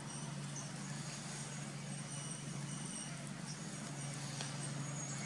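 A steady low mechanical hum, even in level throughout, with faint high-pitched chirps above it.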